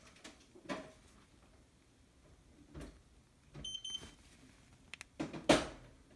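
Xiaomi Mi Air 2 air purifier giving a quick double electronic beep a little past halfway, among scattered soft handling knocks. A single loud thump comes near the end.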